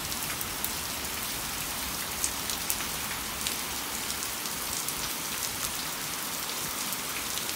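Steady rain falling on wet pavement during a thunderstorm, an even hiss with a few scattered sharp ticks of drops, the loudest two a little past two seconds in.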